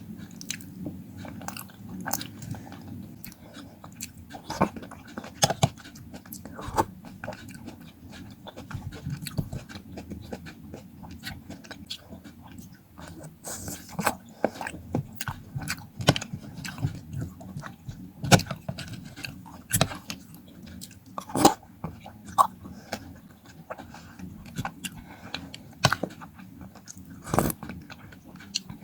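Close-up eating sounds of fruit: chewing with sharp, irregular crunchy bites and wet mouth clicks.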